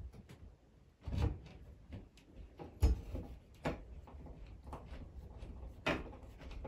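A screw being driven by hand with a screwdriver through a metal ceiling-light bracket into the ceiling: small clicks and scrapes, broken by four sharper knocks of the bracket and tool, the loudest about three seconds in.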